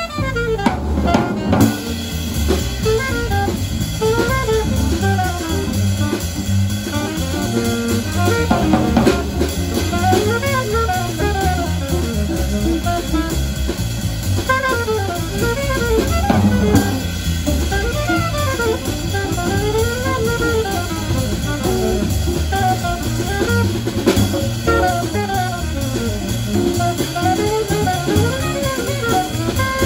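Jazz quartet playing: alto saxophone in fast runs rising and falling, over upright bass, drum kit and hollow-body guitar.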